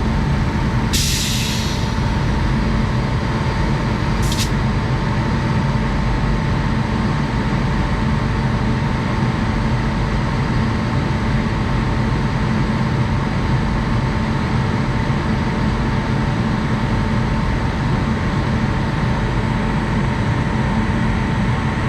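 WAG-9 electric locomotive energised, giving a steady whirring hum with a few fixed tones. About a second in there is a hiss of air lasting about a second, and a second, very short hiss comes at about four seconds.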